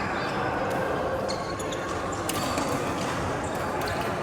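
Badminton play in a hall: a few sharp racket strikes on the shuttlecock and short shoe squeaks on the court floor, over a steady murmur of background chatter.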